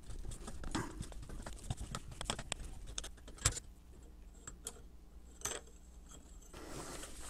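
Scattered light metal clicks and knocks as the crank arm of a vintage Venusburg eggbeater hand drill is handled and worked loose from its drive wheel. The sharpest knock comes about halfway through.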